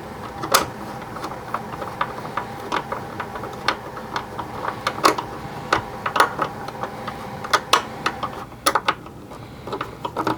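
Screwdriver turning small screws into a plastic toy vehicle: a run of small, irregular clicks and knocks, a few of them sharper.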